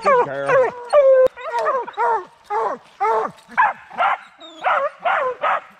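Bear hounds barking treed at a bear up a tree: a couple of drawn-out bawls with wavering pitch at the start, then short chop barks about two a second.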